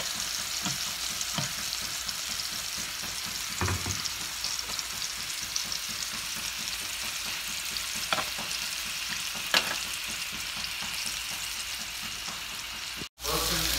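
Chicken pieces frying in butter in a nonstick pan: a steady sizzle, broken by a few clicks of metal tongs against the pan as the pieces are turned. The sound cuts out briefly near the end.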